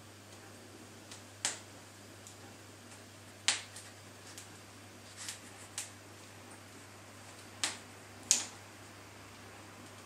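Open fire in the grate of a cast-iron kitchen range, crackling with sharp, irregular pops, about six in all, the loudest near the end. A faint low hum runs underneath.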